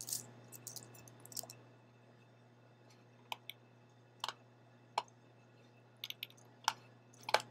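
Faint computer keyboard typing: a quick run of keystrokes in the first second and a half, then single scattered clicks of keys or the mouse every half second to a second.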